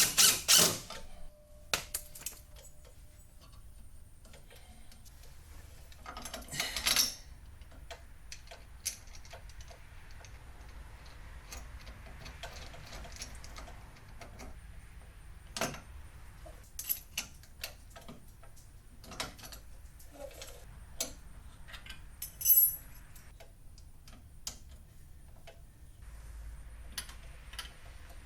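Scattered metal clicks and clinks of bolts and tools being handled while a flip-up caster is bolted onto a workbench leg, with two short louder bursts, about seven seconds in and again past twenty seconds in.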